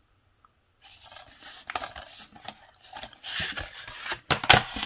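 A cardboard slipcover sliding off a plastic Blu-ray case, starting about a second in: irregular rubbing and scraping of card against plastic, with sharp clicks from the case, the loudest near the end.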